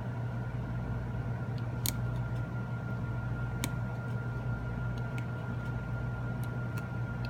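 A few small sharp clicks as an iPhone 6's flex cable connectors are pressed onto the logic board, over a steady low hum.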